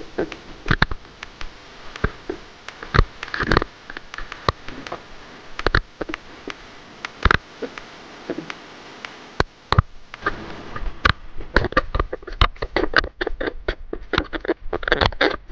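Irregular sharp clicks and knocks from handling a jigging rod and overhead reel, coming faster and denser in the last few seconds.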